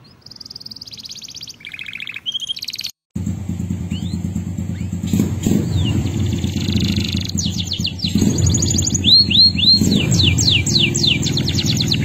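Male canary singing fast trills and runs of quick repeated notes that sweep downward. After a brief cut about three seconds in, a loud, steady low rumble like a running engine sits under the song.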